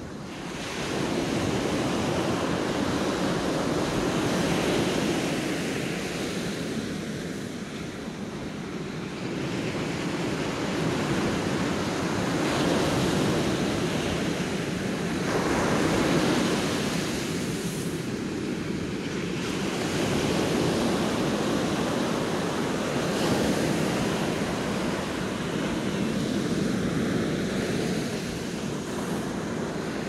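Ocean surf breaking and washing up a sandy beach: a steady rush that swells and eases every few seconds as each wave comes in.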